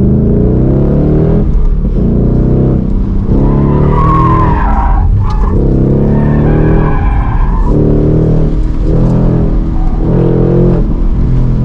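Ford Mustang Mach 1's 5.0-litre Coyote V8 driven hard around a track, its pitch climbing and dropping repeatedly as it accelerates and backs off between corners. A tyre squeals briefly about four seconds in.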